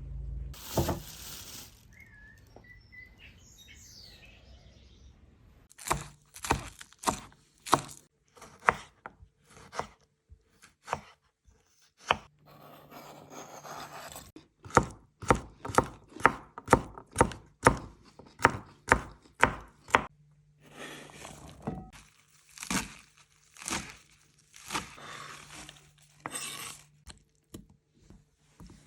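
Knife chopping food, likely salad ingredients, in runs of sharp strokes about two to three a second with short pauses between the runs. A brief burst of noise comes about a second in.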